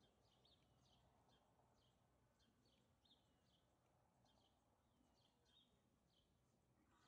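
Near silence with faint bird chirps, short and high, about two a second.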